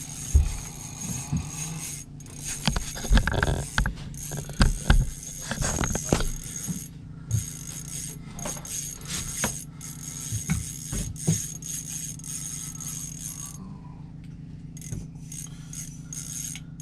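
A fishing reel clicking as gear is handled: scattered clicks and knocks, busiest in the first six seconds and sparser after, over a steady low hum.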